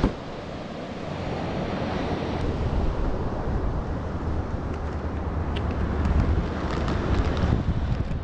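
Wind buffeting the microphone in a steady low rumble, with ocean surf washing behind it. A short sharp knock sounds right at the start, and a few faint light clicks come in the second half.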